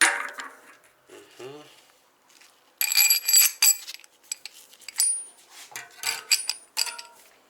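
Steel socket-wrench sockets clinking and rattling against each other as they are handled and sorted through. A sharp metal knock opens it, a dense burst of ringing clinks comes about three seconds in, and a few more scattered clinks follow.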